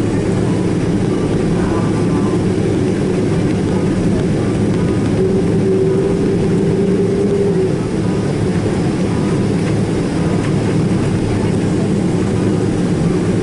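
Cabin noise of a Boeing 767-400ER taxiing, heard from inside the cabin: a steady low hum from the jet engines at idle. A brief steady tone rises above it for a couple of seconds midway.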